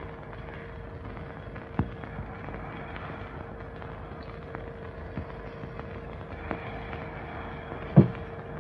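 Worn optical film soundtrack: a steady hiss with a thin constant hum, dotted with crackles and pops. A sharp knock stands out near the end.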